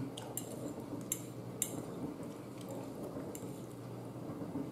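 A metal fork clinking and scraping on a plate as food is scooped up, a few light scattered clinks.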